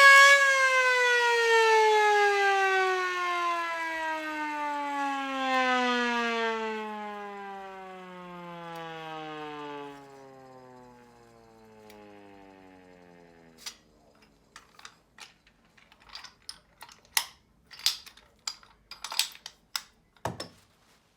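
Hand-cranked SO-100R mechanical siren winding down: its wail falls steadily in pitch and fades out over about thirteen seconds. It is followed by scattered clicks and knocks, with one louder knock near the end.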